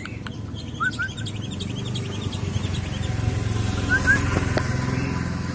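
Songbird chirping and whistling in quick, busy phrases, a bird song recording used to stir male cage birds into singing. There are two pairs of short rising whistles, about a second in and again about four seconds in, over a steady low hum.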